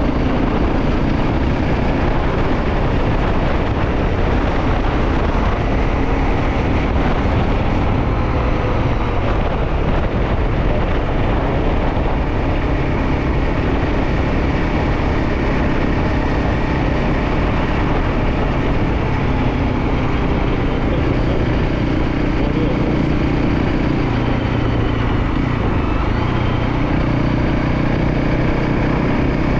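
Motorcycle underway on the road: the engine runs under a steady, loud rush of noise, with no marked revving or gear changes.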